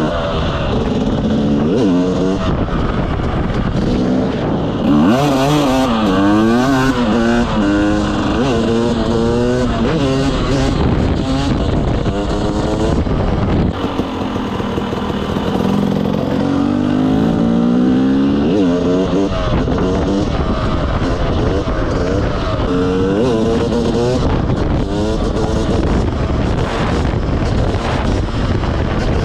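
Motorcycle engine under hard riding, its pitch climbing and dropping again and again as it accelerates and shifts or rolls off the throttle, with a rushing noise underneath.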